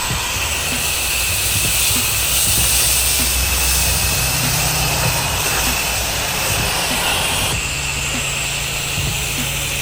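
Pressure-washing rig running steadily: a motor's low drone under the hiss of water spray, with a steady high whine; the hiss changes about three-quarters of the way through.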